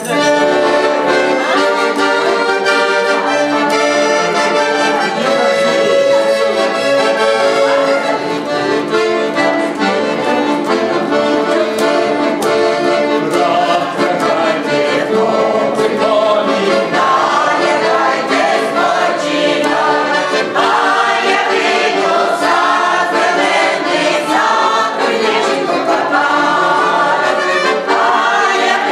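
Accordion playing with a choir singing along; the voices stand out more clearly in the second half.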